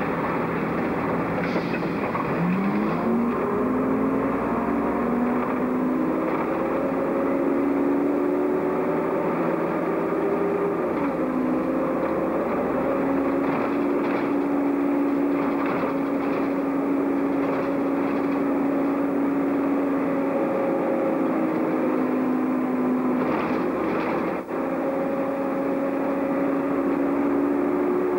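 City bus's diesel engine heard from the driver's cab, pulling away with its pitch climbing, then dropping at a gear change about eleven seconds in and running on steadily at road speed.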